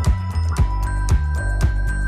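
Background music with a steady beat of about two drum hits a second over a deep bass and held high notes.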